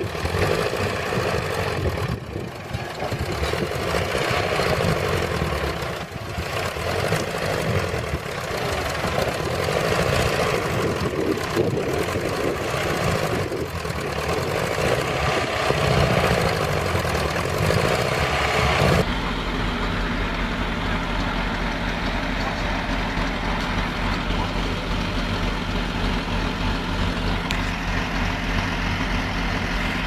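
Heavy machinery engine noise, uneven and rough, at the flooded backhoe loader. About two-thirds of the way in it changes abruptly to a Caterpillar crawler bulldozer's diesel engine running steadily at a constant speed.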